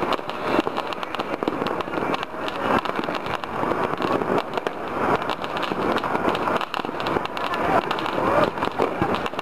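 Many fireworks and firecrackers going off at once all over a city: a dense, unbroken crackle of pops and bangs.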